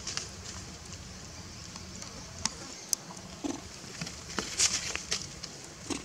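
Scattered short clicks and scratchy rustles of macaques moving against each other and the stone while grooming, busiest about four and a half seconds in, over a steady low background hum.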